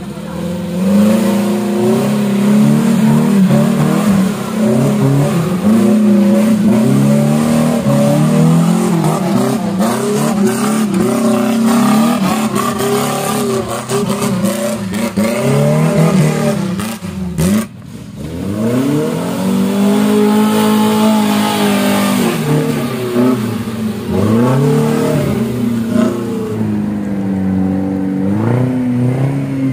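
Suzuki Jimny off-roader's engine revving hard and easing off again and again while driving through mud, with a sudden break about two-thirds through where the sound cuts to another run.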